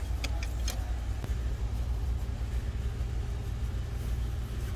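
Steady low rumble, with a few light clicks in the first second.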